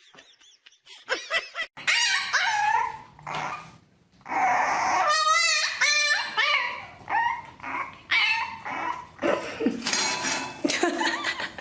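Puppy whining and yipping in a run of high, wavering cries, one after another.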